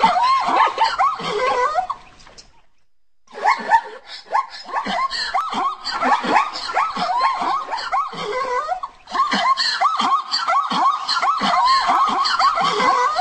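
Zebras giving rapid, repeated barking calls, several animals overlapping, each call a short high rise and fall in pitch. About two seconds in the calling stops for about a second, then carries on.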